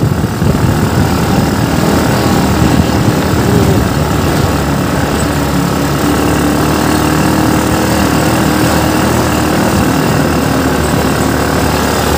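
Dune buggy engine running steadily as the buggy drives across sand, heard from on board in the open cockpit. The engine note settles to a steady pitch about halfway through.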